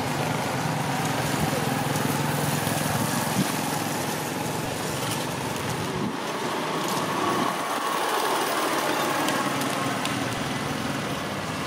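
A motor engine running steadily under a constant background noise, its low hum dying away about halfway through.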